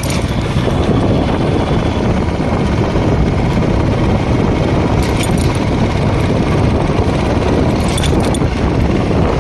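Steady, loud rush of wind and road noise on the microphone while riding, with a vehicle engine running underneath.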